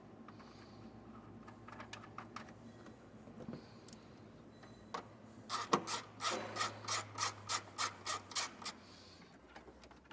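Ratchet wrench clicking in a quick even run of about five strokes a second for around three seconds as it runs a nut down onto a ground stud. Quieter rubbing and handling of tools and wires come before it.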